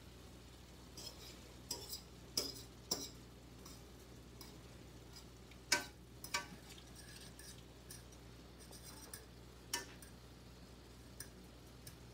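Metal fork clinking and scraping against a nonstick frying pan while stirring ground beef, in irregular taps about a second or more apart, the loudest just before the middle. A faint steady low hum runs underneath.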